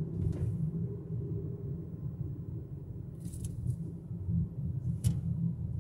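Steady low rumble of a car driving, heard from inside the cabin, with three short knocks: near the start, about three seconds in, and a sharper one near the end.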